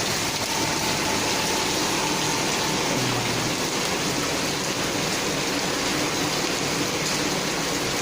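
Heavy rain falling in a storm, a steady hiss.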